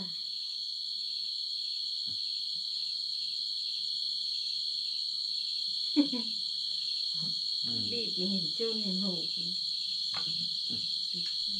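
A steady, shrill chorus of night insects running without a break. A single sharp clink comes about six seconds in.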